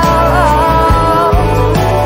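Background music: a song with a wavering sung melody over a steady bass line.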